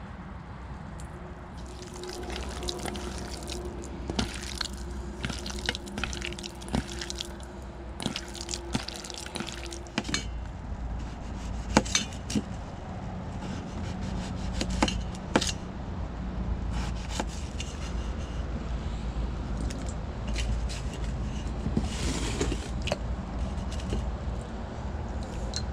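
Scattered clicks, knocks and clinks of camp cooking gear and food being handled, over a steady low rumble.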